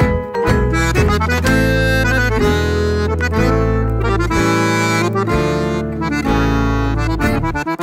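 Instrumental background music with a melody over held bass notes that change every second or so.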